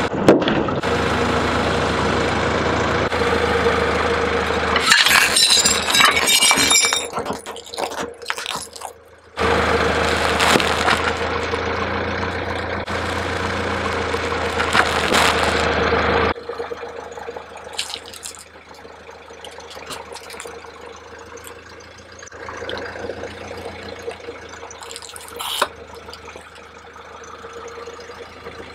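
Car engine idling, interrupted about five seconds in by a couple of seconds of rapid crunching snaps as the car's tyre crushes something brittle. The engine hum comes back, then gives way to a quieter stretch with a few scattered small clicks.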